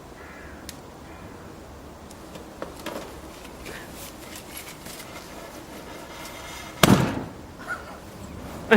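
A firecracker goes off with one sharp bang about seven seconds in, set in an old Epson scanner and blowing the scanner open.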